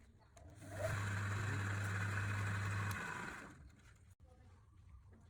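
A small electric motor runs for about two seconds, a steady hum with hiss, then switches off and winds down a little over three seconds in.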